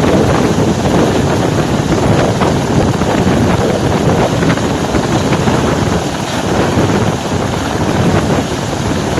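Loud, steady helicopter noise, mixed with wind buffeting the microphone.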